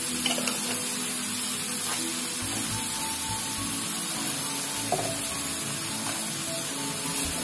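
Thick tomato chutney simmering in a non-stick frying pan, a steady sizzling hiss with a couple of faint clicks.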